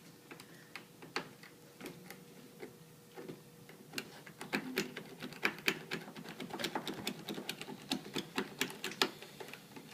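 Metal lock pick clicking and scraping against the pin tumblers inside a deadbolt lock: a few scattered clicks at first, then a quick, irregular run of clicks from about four seconds in.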